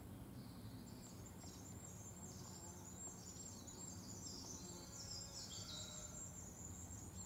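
Faint outdoor background with soft high-pitched chirping and trilling from small birds or insects, a little louder about five to six seconds in.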